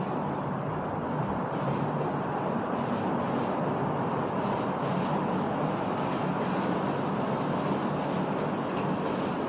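Heavy rain falling steadily, a dense even hiss with faint scattered ticks of drops.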